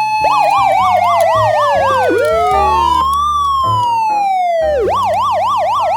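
Electronic siren of a toy ambulance minicar. It starts with a fast warble of about four rises and falls a second, changes about two seconds in to one slow rise and fall, and goes back to the fast warble near the end.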